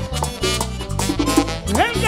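Live band music in Latin dance style, with button accordion, electric bass and hand drums keeping a steady rhythm. A singer's voice comes in near the end on a rising note.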